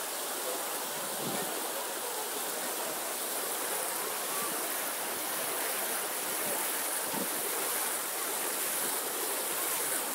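Dozens of small ground-level fountain jets spraying up from a paved plaza and splashing back onto the wet stone: a steady hiss of rushing, falling water.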